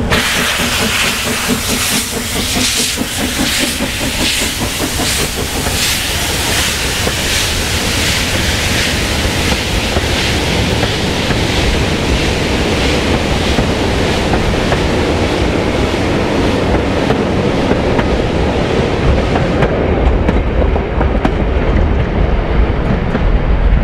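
Narrow-gauge steam train (locomotive BLJ 5 Thor) passing slowly: the locomotive's exhaust chuffs about once a second in the first several seconds, then the carriages roll by with a steady rumble and the clatter of wheels over rail joints.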